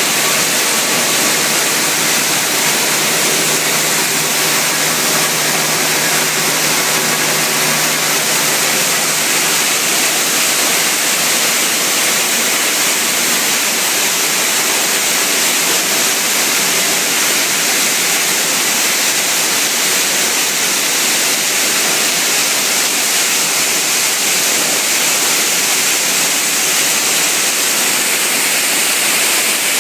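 Waste plastic washing machine running: a loud, steady rush like flowing water, with a faint low hum for the first several seconds.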